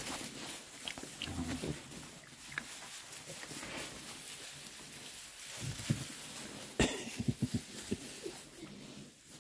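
Oxford Sandy and Black piglets grunting as they scurry through straw bedding, with the straw rustling throughout. Near the end comes a quick run of short grunts.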